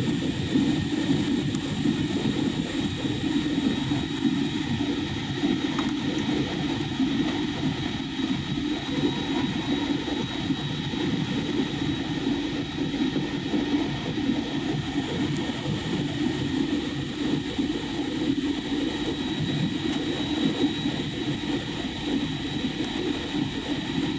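Steady cabin noise of a passenger airliner in flight: a constant low rush of engines and airflow, with a faint steady high whine above it.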